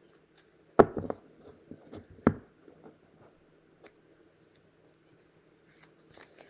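Tarot cards being handled and laid on a table: a sharp tap about a second in and another just after two seconds, with small clicks and rustling between.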